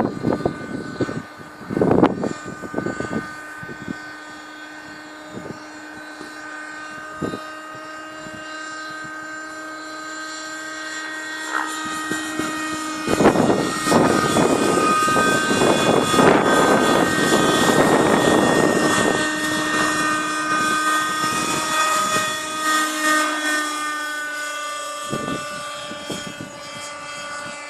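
Thunder Tiger Raptor 30 nitro RC helicopter in flight: its two-stroke glow engine and rotor make a steady high whine that shifts a little in pitch. Wind rumbles on the microphone in gusts, about two seconds in and for several seconds in the middle.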